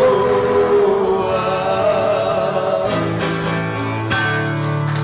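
Male voices holding the last sung word of a sertanejo raiz country song over a viola caipira and acoustic guitar, then the strings strum the closing chords in the second half.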